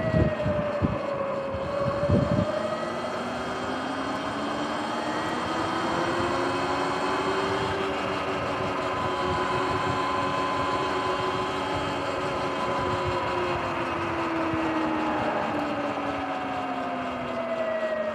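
Sur-Ron electric dirt bike's motor and drive whining, rising in pitch as the bike speeds up over the first several seconds, holding, then falling as it slows near the end. Wind buffets the microphone in low thumps for the first couple of seconds.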